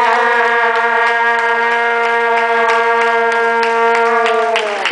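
A fan's horn blown in one long held note, sagging in pitch and cutting off near the end, with scattered clapping underneath.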